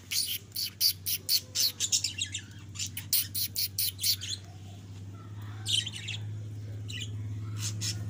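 Budgerigars chirping: a fast run of sharp chirps, about four a second, for the first four seconds, then a few scattered chirps. A low steady hum grows louder in the second half.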